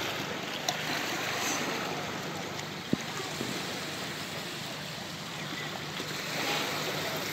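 Small sea waves washing and lapping among the rocks of a rocky shore: a steady hiss of surf and running water, with one brief sharp click about three seconds in.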